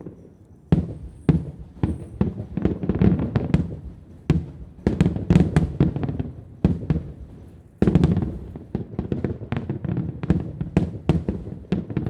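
Fireworks going off in dense volleys of sharp bangs and crackles. Fresh volleys start abruptly about a second in, at about four seconds, and near eight seconds.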